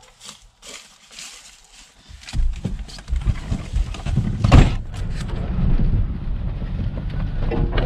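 Truck driving on a dirt woods road, its cab filled with engine and road rumble that sets in about two seconds in. There is a loud thump or bump about halfway through.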